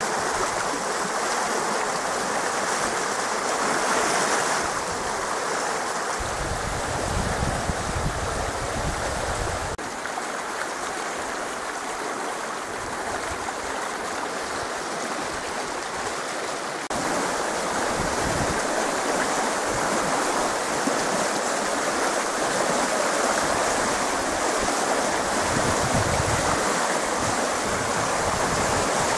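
Small creek in flood after heavy rain, fast muddy water rushing steadily along its stone-walled channel.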